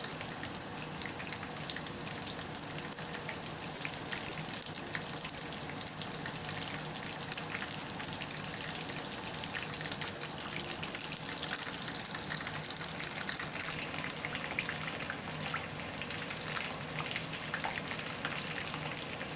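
Beef lumpia shanghai rolls deep-frying submerged in hot oil in a pan: a steady sizzle with many small crackling pops.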